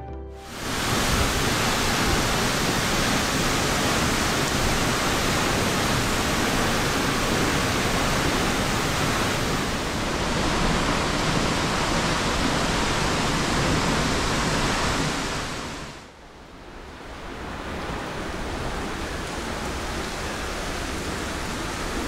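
Steady, loud rush of a large waterfall's falling water. About sixteen seconds in it drops away briefly and comes back quieter.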